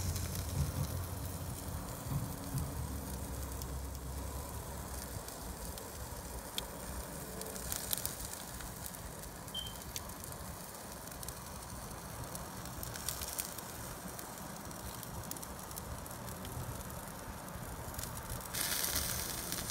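Chicken grilling over charcoal: a steady sizzle and crackle with scattered pops, and a louder hiss near the end.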